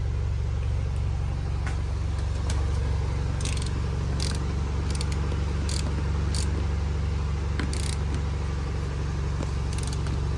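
A steady low motor hum, like an engine running at idle, with a few light clicks and knocks scattered through it.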